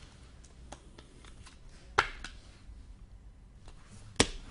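Hockey trading cards being handled and shuffled on a table: light rustling and ticks, with two sharp snaps about two seconds apart.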